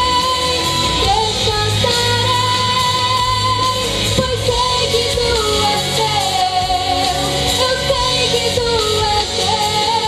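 A woman singing a gospel song live into a handheld microphone over instrumental backing, holding long notes that glide between pitches.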